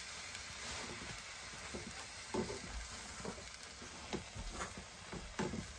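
Noodles sizzling as they are stir-fried in a two-handled metal pan, with a utensil scraping and knocking against the pan about once a second.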